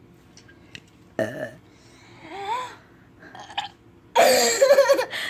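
A person burping: a loud, drawn-out burp about a second long near the end, with a shorter burst and a few brief vocal sounds before it.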